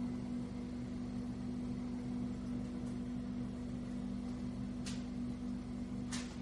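A steady low hum over a faint hiss, with two short clicks about five and six seconds in.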